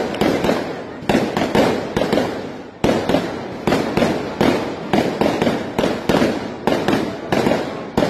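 Aerial fireworks exploding in a rapid series of sharp bangs, about two to three a second, each trailing off before the next.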